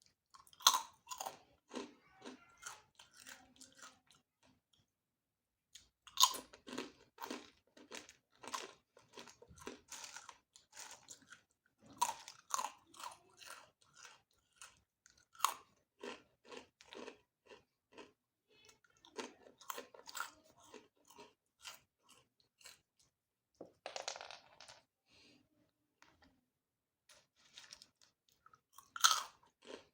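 Close-miked crunchy chewing of food: a loud crunching bite followed by a run of rapid crunchy chews, repeated about six times with short pauses between.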